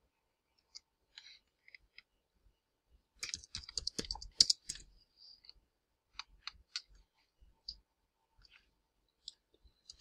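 Quiet computer keyboard typing, a short quick run of keystrokes about three seconds in, with scattered single mouse and key clicks before and after it.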